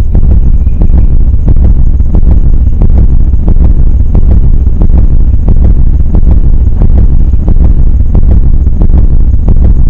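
A loud, steady low rumble with frequent irregular crackles and clicks running through it.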